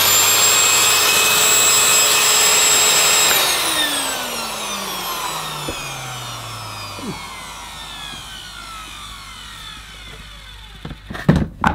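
Hitachi CV-790 Powerhouse vacuum cleaner motor running noisily with its bagless dust compartment removed. It is switched off about three seconds in and winds down slowly, its whine falling steadily in pitch. A few short knocks come near the end.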